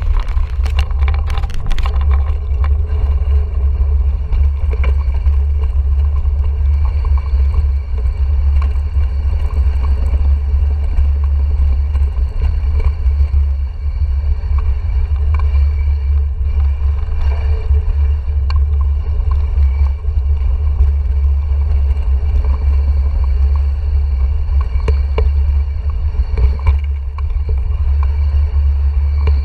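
Wind buffeting a GoPro Hero 4 action camera's microphone as a mountain bike rolls down a flagstone path: a loud, steady low rumble, with scattered clicks and rattles from the bike over the stones, thickest in the first couple of seconds.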